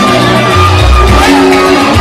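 Loud live maskandi music: an acoustic guitar melody over deep bass notes, with a voice shouting over it.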